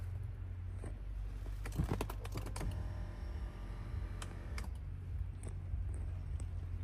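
Light clicks and taps from handling a handheld camera, bunched about two seconds in and again a couple of seconds later, over a steady low hum.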